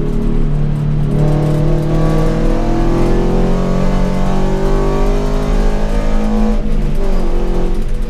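Toyota GT86's flat-four engine heard from inside the cabin, pulling hard with its note rising steadily for several seconds under acceleration on track. About six and a half seconds in the note drops sharply, then holds lower.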